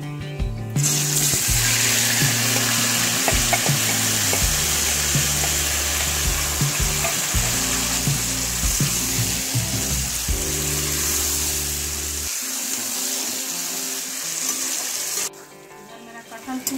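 Marinated jackfruit pieces frying in hot oil, sizzling loudly from about a second in, with a spatula clicking and scraping against the pan as they are stirred. The sizzle stops abruptly near the end.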